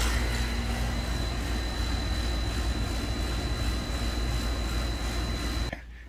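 DIY 120 V rotary-compressor heat pump's outdoor section running: a steady low hum and fan rush with a faint thin high whine. It cuts off abruptly near the end.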